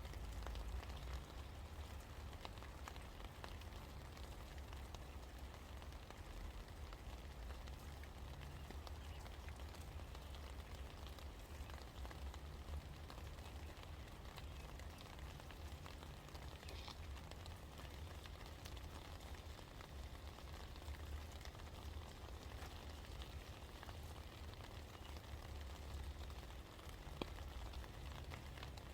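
Steady rain falling, with many small drop ticks pattering over an even hiss, over a constant low rumble.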